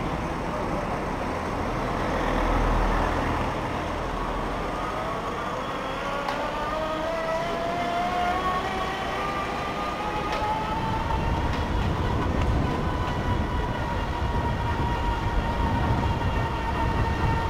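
Electric bike motor whining under way, its pitch climbing over several seconds and then holding level, over a steady low rumble of wind and road noise.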